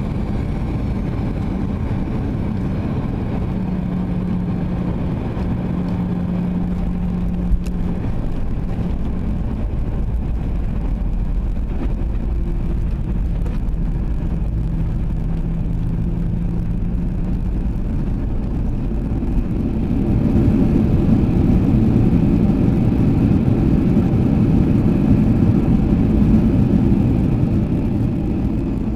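Cabin noise of a Boeing 737-800 taxiing after landing: a steady low rumble of its CFM56 jet engines and wheels on the pavement, with a faint hum. The noise grows louder for several seconds about two-thirds of the way through, then eases back.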